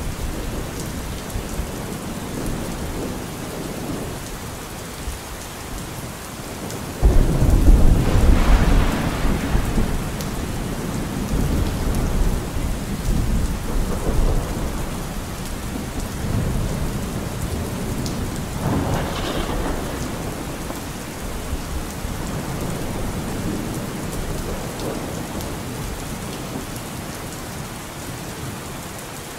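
Steady rain with thunder: a loud low rumble starts suddenly about seven seconds in and rolls on for a few seconds, with fainter rumbles after it.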